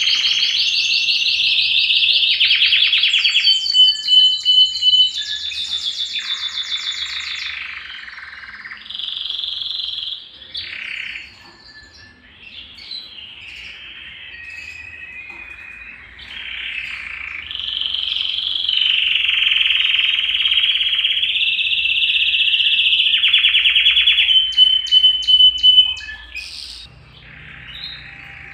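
Canary (canário belga) singing a long warbling song of rapid high trills and rolls. It is loud for the first several seconds and again for most of the second half, with softer, broken phrases in between.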